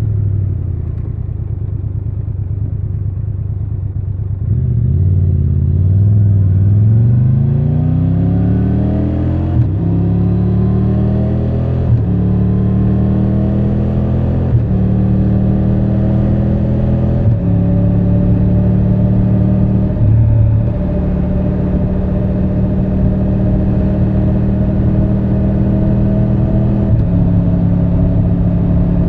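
Triumph Tiger 1200 Rally Pro's 1160 cc inline three-cylinder engine ticking over low, then pulling away under throttle with the pitch rising, shifting up through the gears about four times. It then holds a steady cruise.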